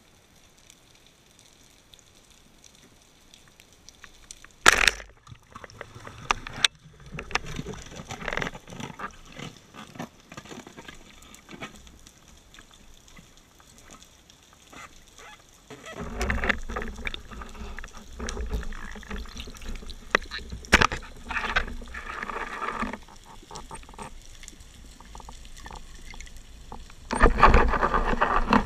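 Underwater sound through a camera housing on a speargun: scattered sharp clicks and knocks and rumbling water movement from the diver's gear. About 27 s in, the speargun fires and a sudden loud, rough burst of noise follows as the shaft and line go out.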